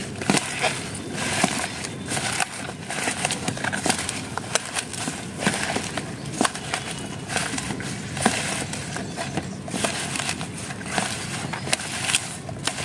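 A hand mashing and squeezing chopped stems and leaves with jaggery in a stainless steel bowl: irregular crackling and clicking as the pieces are crushed and stirred.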